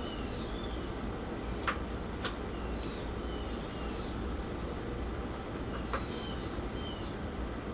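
Steady background room noise with faint short, falling chirps of small birds scattered throughout. A few light clicks come from a small container being handled over a blender jar, about two seconds in and again near six seconds.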